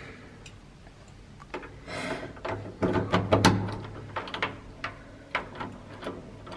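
A key turning in a door lock beneath a metal lever handle, making a run of sharp metallic clicks and rattles. There is a short rustle about two seconds in, and the clicks come thickest just after it.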